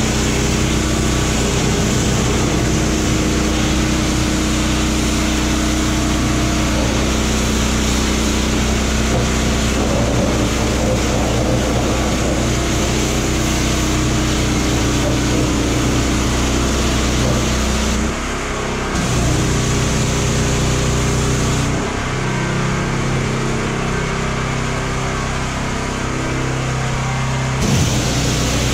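Pressure washer running with a steady motor hum under the hiss of its high-pressure spray hitting a truck's tyres, rims and fenders. The hiss eases briefly about 18 seconds in and again for several seconds from about 22 seconds.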